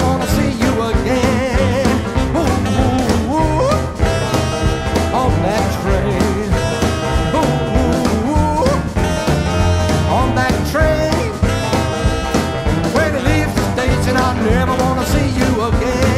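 Small rhythm-and-blues band playing an instrumental passage: electric guitar, upright bass, drums and keyboard over a steady swing beat, with bending, sliding melody notes.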